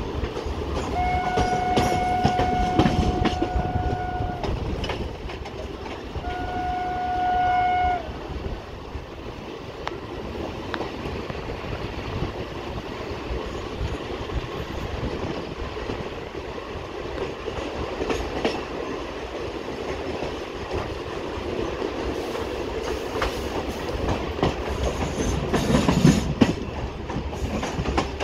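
Indian Railways train running along the track, its wheels clattering over the rail joints. About a second in, the train horn sounds a long steady blast of some three seconds, then a shorter blast about six seconds in. The rumble swells briefly near the end.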